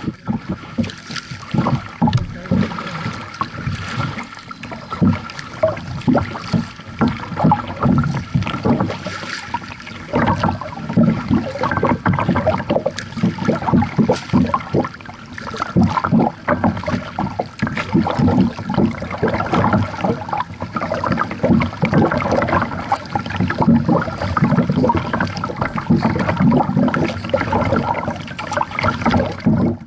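Lake water splashing and lapping close against a paddled kayak: a continuous choppy wash with frequent irregular small slaps and gurgles.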